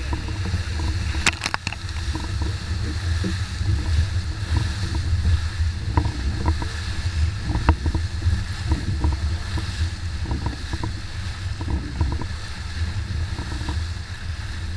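Wind buffeting the camera's microphone as a Hobie 16 catamaran sails fast, with water rushing past the hull and spray striking the camera. A few sharp knocks about a second and a half in, and a couple more later.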